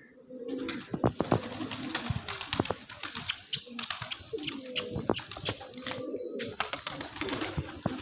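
Fancy pigeons cooing in low, warbling calls over a steady rustle, with many sharp clicks and taps scattered through it.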